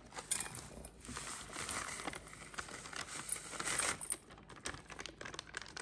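Dry cake mix being poured out of its packet into a bowl, with the packet crinkling: a rustling hiss for about four seconds, then a few small taps.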